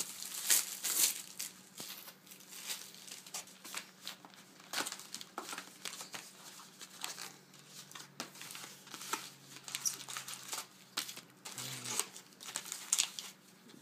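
Clear plastic shrink-wrap crinkling and tearing in irregular crackles as it is pulled off a sealed trading-card box. Near the end, the cardboard box is opened and the foil card packs are handled.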